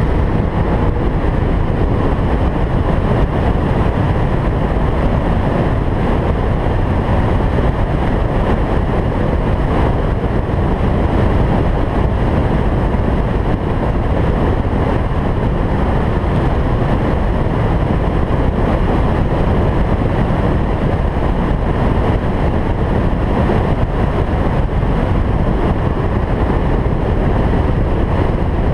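Steady rush of wind and road noise from a car cruising at speed, with wind buffeting the microphone.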